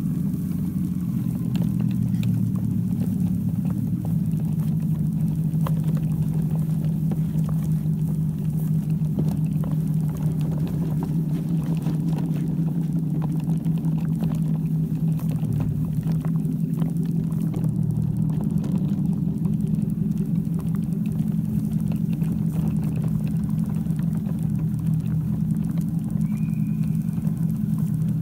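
Steady low engine-like drone, holding nearly the same pitch throughout, like a truck idling.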